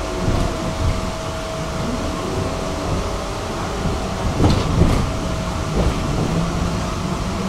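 Tram running along its rails with a steady rumble and hum. The electric motor whine glides up and down in pitch, and a few knocks from the wheels come about two-thirds of the way through.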